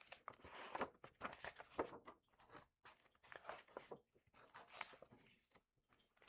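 A hardcover picture book being opened and its pages turned: faint, irregular crinkling and rustling of paper and cover, busiest in the first two seconds.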